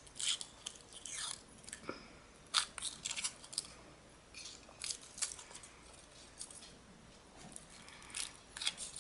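Foil wrapper of a Kinder Surprise chocolate egg being peeled off and crinkled by hand, in short, irregular crackles.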